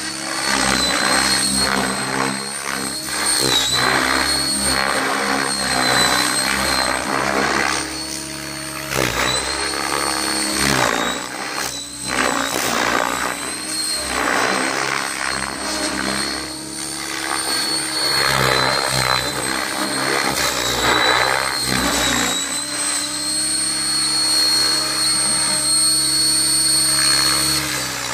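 Electric RC helicopter with an Align 800MX motor and 690 mm blades spinning at about 2040 rpm headspeed, flying low: the rotor buzz and a high, steady motor whine swell and fade as it passes back and forth.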